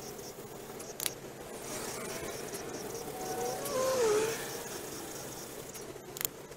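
Crickets chirping in a steady, regular pulse over a continuous hiss. A short wavering call rises and falls about four seconds in, and there are two brief clicks.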